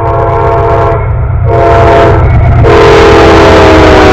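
Diesel freight locomotive's multi-chime air horn, several notes sounding together, blown in three blasts: two shorter ones, then a long one that is still sounding at the end. A steady low rumble runs underneath.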